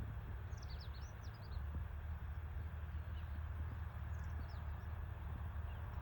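Steady low rumble, with faint, high, quick bird chirps in two short bunches, from about half a second to a second and a half in and again around four seconds in.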